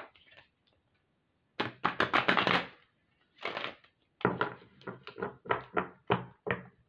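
A deck of oracle cards being shuffled by hand. A quick run of card flicks comes about two seconds in, then a steady series of sharp card slaps about three a second near the end.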